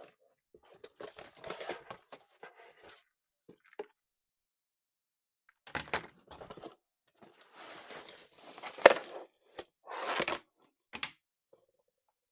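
Unboxing handling noises: intermittent scraping and rustling of packaging and plastic parts, with a pause partway through and a sharp click about nine seconds in, the loudest sound.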